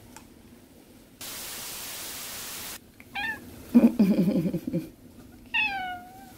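Domestic cat vocalising: a short chirp about three seconds in, then a low wavering trill, then a drawn-out meow that falls in pitch and levels off. Earlier, about a second in, a second and a half of even hiss.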